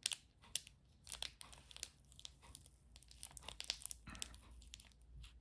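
Crinkly packaging being crumpled and torn open by hand, with many small irregular crackles, to get the kit's foam out.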